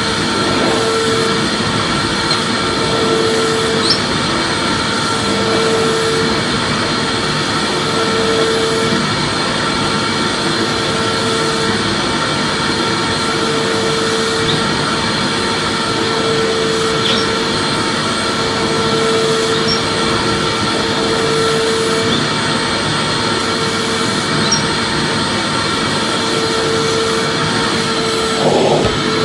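Vacuum cleaner running steadily, a continuous motor whoosh, with a fainter hum in it that swells about every two and a half seconds.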